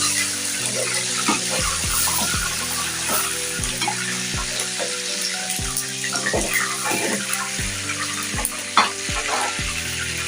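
Chicken pieces deep-frying in hot oil, a steady crackling sizzle, with background music and its soft beat underneath.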